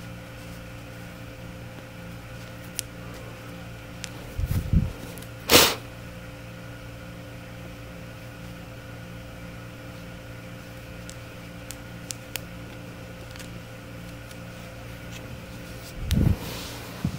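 A steady mechanical hum with several fixed pitches, like a fan or appliance running in the room. It is broken by a low thump about four and a half seconds in, a brief sharp noise just after it that is the loudest sound here, a few faint clicks, and another low thump near the end, the kind of handling noise hands make working close to the microphone.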